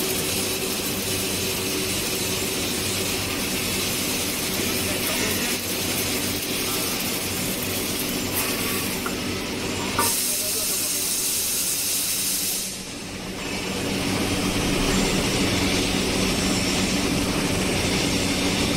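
Laser tube-cutting machine cutting a steel pipe: a steady hiss from the cutting head's gas jet over a machine hum. About ten seconds in comes a clunk and a louder hiss, which cuts off sharply a few seconds later, and the steady workshop noise then returns.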